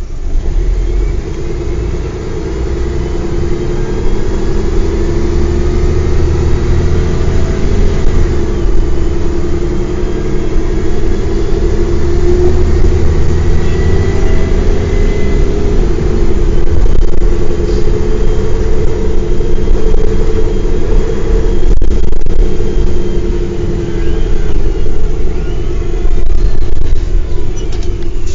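Mercedes-Benz O405 bus's diesel engine running under way, its note rising and falling as it pulls and eases off, over a steady low rumble. A single sharp knock is heard about three quarters of the way through.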